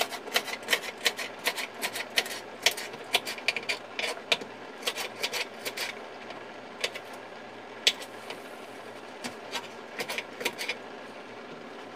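Kitchen knife chopping celery stalks on a plastic cutting board: a quick run of sharp taps through the first half, then scattered taps that stop about a second before the end.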